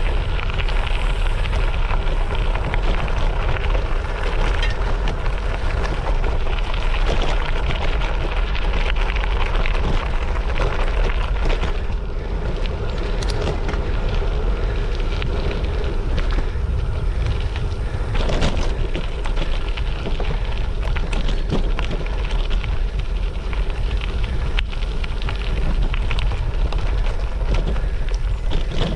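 Wind noise on the microphone and bike tyres crunching over a gravel trail while riding, a loud steady rush with constant crackling.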